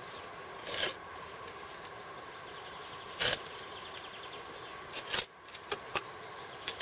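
Small folding knife shaving green wood, the stick drawn along the blade braced against a tree: about six short scraping strokes at uneven intervals, the loudest about five seconds in.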